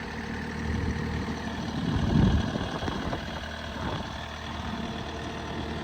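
Bobcat S250 skid steer's Kubota diesel engine idling steadily, with a louder low rumble swelling briefly about two seconds in.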